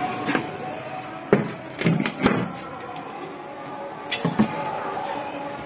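Several short knocks and clatters as a scrap car radiator is handled and shifted, over a steady background hum.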